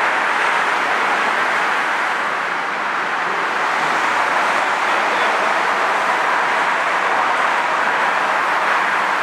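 A CTA 5000-series rapid-transit train standing at the platform, giving a steady, even rushing hum with no distinct knocks or tones.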